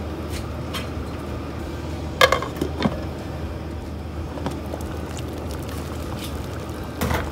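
Soup bubbling at a boil in a stovetop pot, with a sharp clink of its glass lid about two seconds in, a few lighter knocks just after, and another clink near the end.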